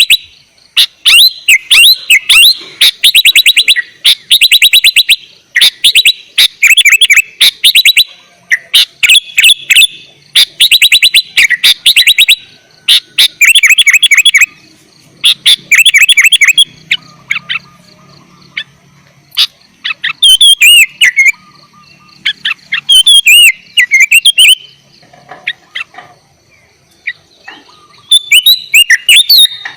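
Sooty-headed bulbul singing loudly and continuously, in bursts of fast repeated chirps a second or two long, with curving whistled notes from about two-thirds of the way through.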